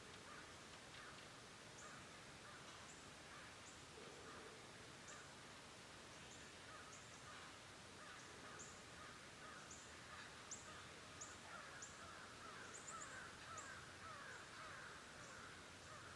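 Faint birds calling at dawn, near silence overall: short high chirps about once a second, many sliding down in pitch, over a low chatter of other calls that gets busier in the second half.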